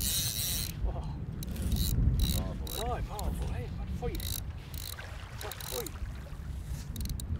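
Fly reel's click-and-pawl drag ratcheting in repeated short bursts while a hooked char is played on the bent fly rod, over a low rumble of wind on the microphone.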